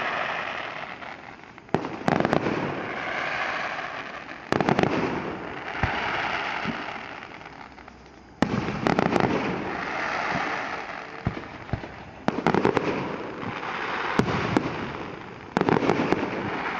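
Aerial fireworks shells bursting: five sharp bangs, three to four seconds apart, each followed by a few seconds of crackle and echo that fade away.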